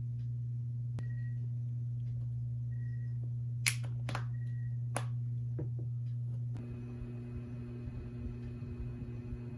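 Three sharp plastic clicks over about a second and a half as a small plastic case's hinged lid is snapped shut and handled, over a steady low hum.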